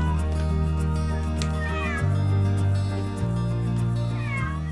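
A domestic cat meows a few times, each meow falling in pitch, over background music of sustained low chords.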